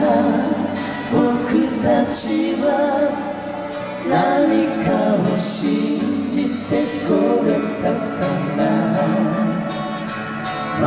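A live band with keyboards and guitars plays the instrumental introduction of a slow pop ballad. The melody is carried over a steady accompaniment, and the vocals have not yet come in.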